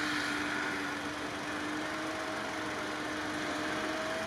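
Mitsubishi Pajero 2's engine held at steady high revs as it climbs a snowy slope, its wheels spinning in the snow.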